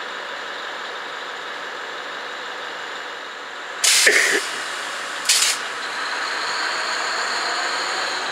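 Knoxville Locomotive Works SE15B diesel switcher locomotive idling, with two short, loud hisses of compressed air from the train's air brakes about four and five and a half seconds in. The engine grows slightly louder after the second hiss.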